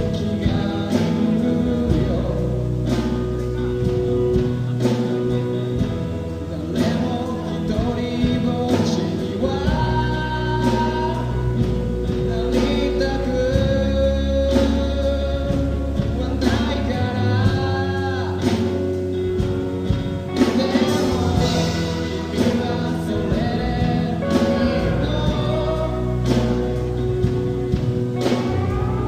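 A band playing a song with a male lead vocal over drums, bass and guitar, with a steady drum beat throughout.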